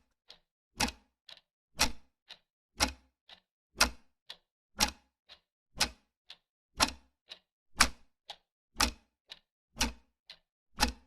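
Steady ticking in an even rhythm: a strong tick about once a second, each followed by a softer tick about half a second later.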